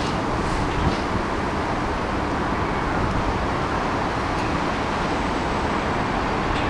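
A long rake of open box freight wagons rolling past close by: a steady rumble and hiss of wheels on the rails, with a couple of faint clicks about a second in.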